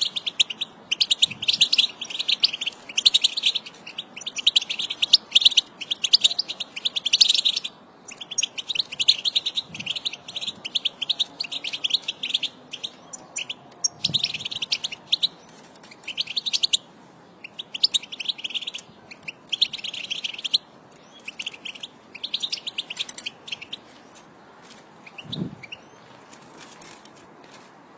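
A flock of European goldfinches twittering: rapid, high, tinkling chatter in bouts of about a second with short pauses, thinning out to scattered calls near the end.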